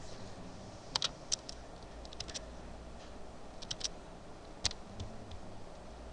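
Sparse light clicks of computer input, a dozen or so in small clusters of two or three, over a faint steady low hum.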